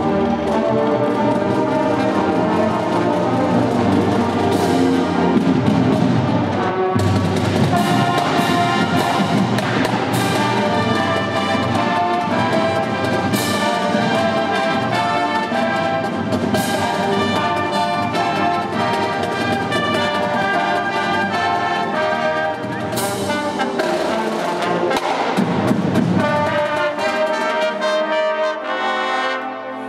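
Marching band playing live, its brass (sousaphones, trumpets and other horns) carrying a piece together, with several sharp percussion hits along the way.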